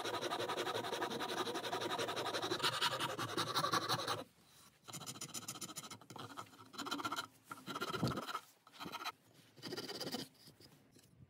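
Steel wood rasps and files scraping across a wooden rifle stock, shaping it. There is continuous rapid rasping for about four seconds, then separate strokes with short pauses between them.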